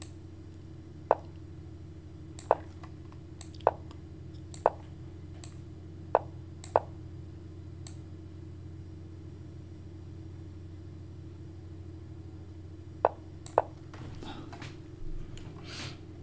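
Short sharp clicks of pieces being moved in an online blitz chess game, about ten at irregular intervals with a gap of several seconds in the middle, over a steady low hum. Near the end there is a soft rustle.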